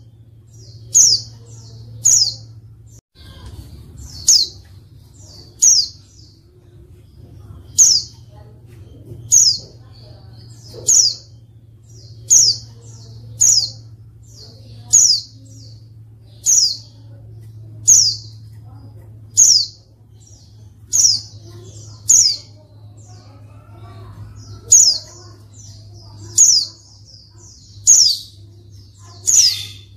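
Female white-eye (pleci) giving short, high call notes, each falling quickly in pitch, about one every second and a half, over a steady low hum. These female calls are used as a lure to make male white-eyes answer and sing.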